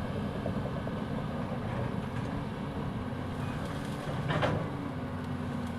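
Caterpillar 320D excavator's diesel engine running steadily, with a brief rushing noise a little past four seconds in.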